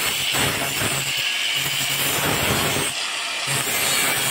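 Electric angle grinder running against the steel blade of a homemade grass cutter, grinding it sharp: a steady high whine over a harsh grinding noise.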